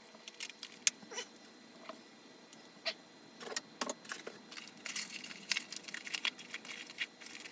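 Scattered light clicks, taps and rustles of small hard items and packaging being handled, with a cluster of quicker clicks a bit past the middle.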